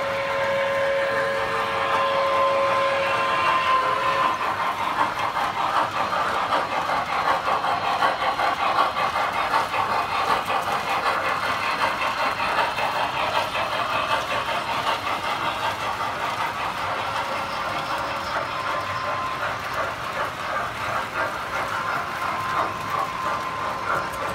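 Standard Gauge tinplate toy trains running on metal track: a steady dense metallic clatter and rattle of wheels and cars. A toy train whistle sounds one steady tone for about the first three and a half seconds.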